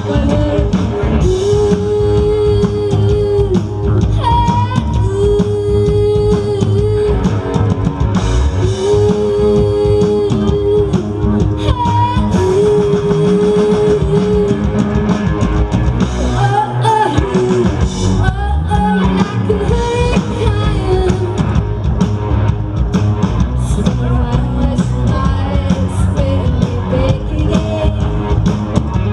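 Live rock band playing loudly: a woman singing lead over electric guitars and a drum kit, heard through the outdoor PA.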